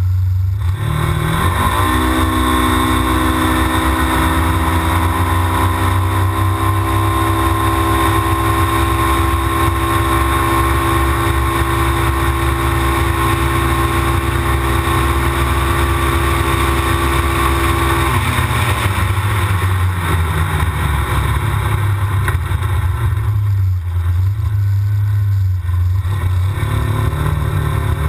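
Stock Polaris RZR XP side-by-side's engine and drivetrain heard from inside the cab while driving: the revs climb about a second in and hold a steady drone at cruising speed, then drop away about two-thirds through as the throttle is eased, leaving a rougher running sound with road and wind noise.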